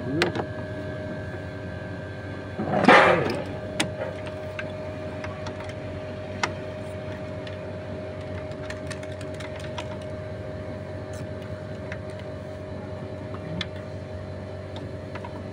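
Renault 1.5 dCi four-cylinder diesel engine running at a steady idle with its cam cover off: a steady mechanical hum with light clatter from the exposed valve gear. A short loud burst of noise comes about three seconds in.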